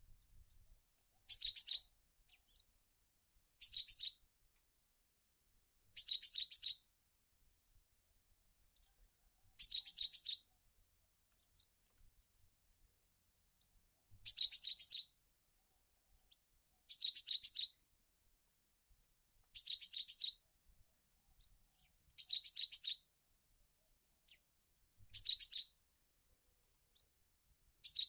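Cinereous tit (gelatik batu) song: a short, high-pitched phrase of quick notes repeated about ten times, every few seconds, with quiet in between.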